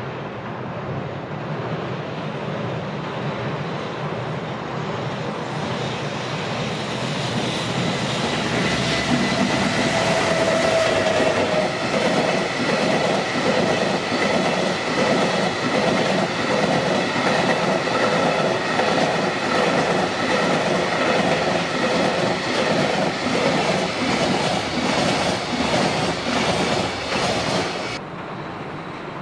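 JR Freight EF210 electric locomotive and a long rake of container wagons passing close by. The sound grows louder as the train approaches, with a brief whine about ten seconds in. Then the wheels clatter over the rail joints in an even, steady rhythm until the sound drops suddenly near the end.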